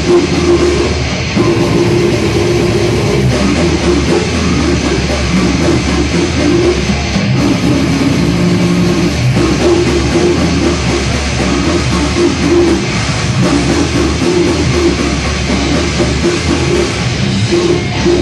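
Death metal band playing live: loud distorted electric guitars and bass over a drum kit, continuous.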